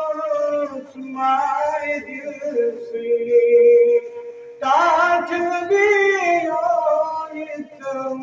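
A man singing a Kashmiri naat solo, in long held notes with wavering ornaments, phrase after phrase, with short breaks for breath about one second and about four and a half seconds in.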